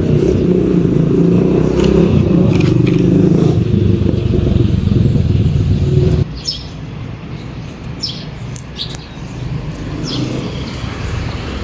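A vehicle engine running steadily, which cuts off abruptly about six seconds in. A quieter outdoor background follows, with a few short bird chirps.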